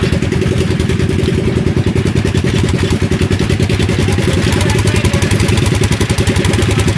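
Off-road buggy's engine idling, a loud, steady, fast pulse.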